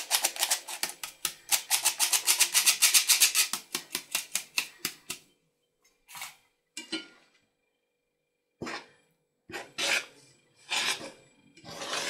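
Metal flour sifter rasping as it is worked over a pot, an even run of about six strokes a second that stops about five seconds in. After a pause, a few separate scrapes of a metal spoon stirring flour into dough in the pot.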